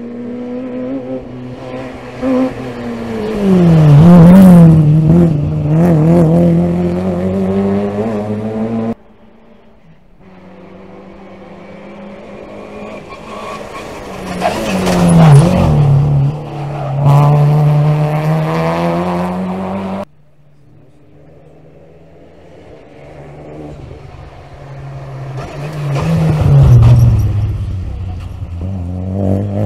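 Three rally cars passing one after another at speed: each engine runs at high revs and grows louder as the car approaches, its pitch dropping as it goes by. The sound cuts off suddenly twice, between cars.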